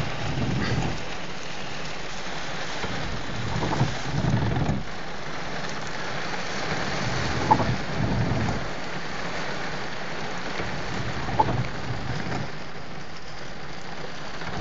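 Heavy rain beating on a car's windshield and roof, heard from inside the car, over a steady rush of floodwater. A short knock followed by a low swell recurs about every four seconds.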